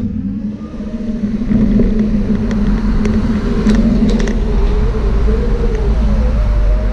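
Ride noise from a camera travelling along a paved path: wheel rumble and wind buffeting with a steady low hum, a higher hum that wavers up and down, and a few sharp rattling clicks about halfway through.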